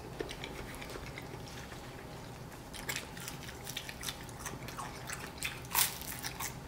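Close-up eating sounds: quiet chewing of soft rice rolls, then clicks of a fork working in the plate. About six seconds in, the loudest sound comes: a crisp bite into a piece of fried dough.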